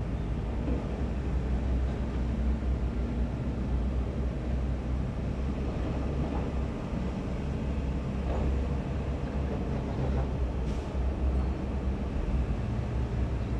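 Heavy diesel engines of dump trucks and a crawler bulldozer running in a steady low rumble, with a few faint knocks.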